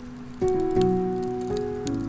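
Background music: held notes come in about half a second in and change several times. Underneath, the scattered crackle of a wood campfire.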